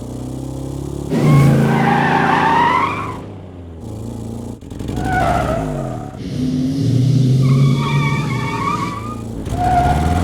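Car engines running and revving, their pitch rising and falling, with several loud tyre squeals. The longest squeal starts about a second in, and others come around the middle and near the end.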